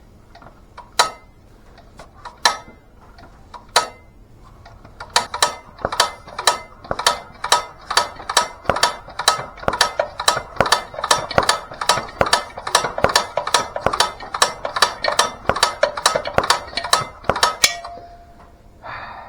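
Sharp mechanical clicks from an International Harvester LB engine being worked over by hand: a few single clicks at first, then a steady run of about three a second that stops shortly before the end. The engine is pulling in air well but not pushing out well, which is why its head has to come back off.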